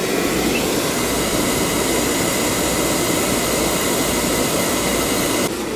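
Oil-fired furnace running: the burner and the blower fan make a loud, steady rush of air. The blower has just started after the burner heated up, the fan control switching it on once the furnace is hot. The noise drops suddenly near the end.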